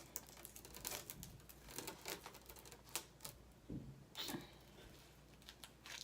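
Plastic wafer wrapper being opened by pulling its red tear tab: a run of faint, scattered crinkles and crackles of the packaging.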